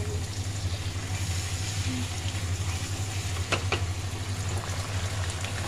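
Steady low hum under an even hiss in a kitchen, with a couple of light clicks about three and a half seconds in.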